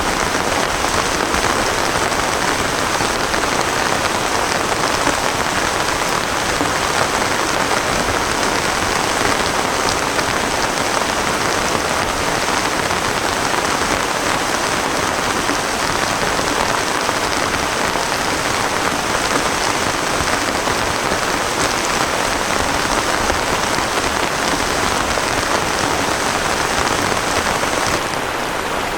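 Heavy rain falling steadily, a dense even hiss of drops, dipping slightly in level about a second before the end.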